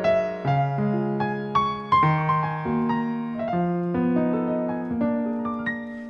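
Background music: a piano playing a slow, gentle melody over changing bass notes.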